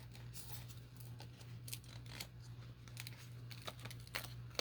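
Faint rustling and crinkling of paper and stickers being handled, with a few light ticks, over a steady low hum.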